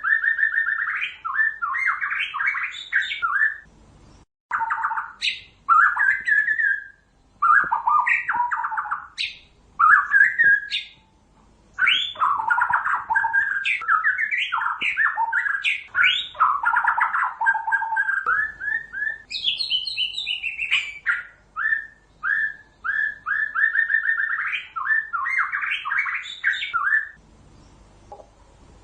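White-rumped shama (murai batu) singing: phrase after phrase of rapid, varied whistled and chattering notes, some sliding sharply up, broken by short pauses.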